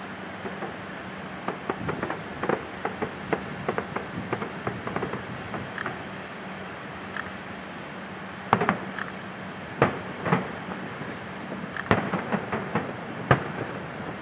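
Fireworks display heard from a distance. A quick run of bangs comes in the first few seconds, then a handful of louder, separate aerial shell bursts boom in the second half.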